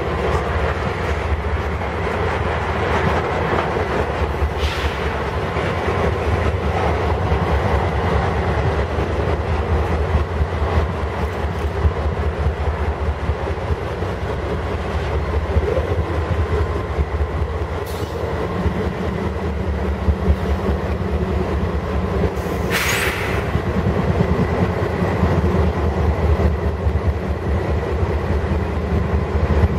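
Slow freight train making a reverse move: tank and hopper cars roll past with a steady rumble and wheel clatter, then the Canadian Pacific diesel locomotives go by with a steady engine drone joining in about two-thirds through. A few brief sharp noises stand out, the loudest about three-quarters in.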